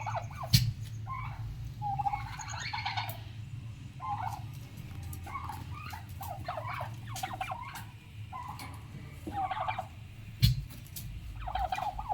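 Seven-month-old domestic turkeys making short, repeated calls, several overlapping, over a steady low hum, with a couple of sharp knocks.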